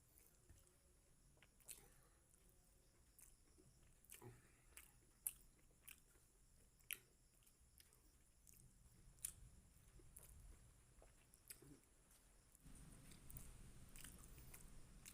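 A person chewing food, faint, with scattered sharp wet mouth clicks and smacks. A low rumble grows louder near the end.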